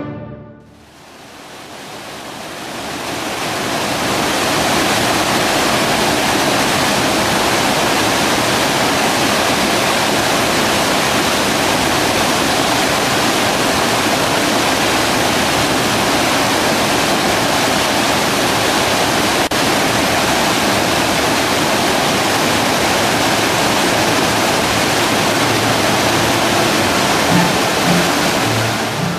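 Mountain river rapids: water rushing over and around boulders in a loud, steady, even rush that fades in over the first few seconds.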